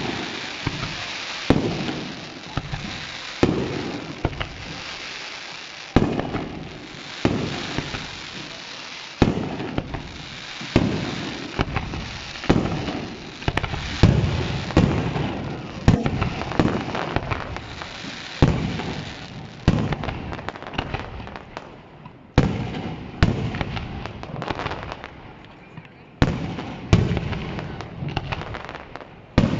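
Fireworks display: a rapid series of sharp bangs from bursting shells, one every second or two, each trailing off in a rumbling echo, over a continuous crackle.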